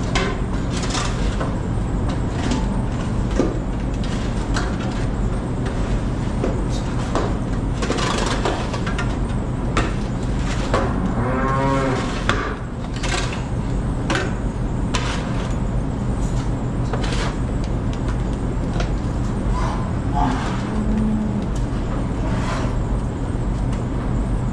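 Dairy cows mooing: one clear moo about halfway through and a shorter, lower moo near the end, over a steady low machine hum and scattered clanks and knocks.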